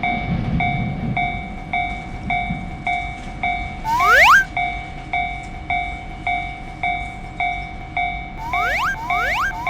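Japanese railroad crossing warning bell ringing steadily, a little under two dings a second. A train's low rumble fades out over the first couple of seconds, a rising sound effect plays once about four seconds in, and a quick run of the same rising sound starts near the end.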